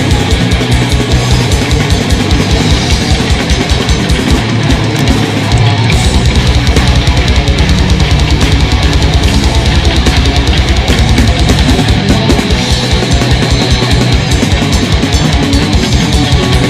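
Heavy metal band playing live, with no singing: guitars over a fast, steady kick-drum beat. About six seconds in, the kicks run together into a continuous low rumble for several seconds, then the separate fast kicks return.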